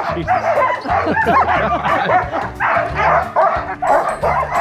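A yard full of sled dogs barking and yelping all at once, in a continuous overlapping chorus.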